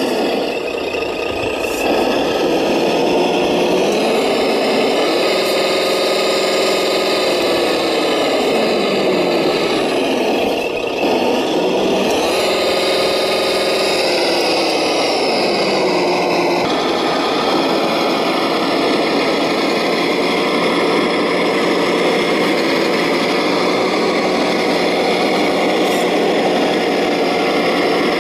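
RC model MB-trac tractor driving through dirt, its motor giving a steady engine-like hum. The pitch rises, holds and falls back twice as the tractor speeds up and slows down, then runs steadily.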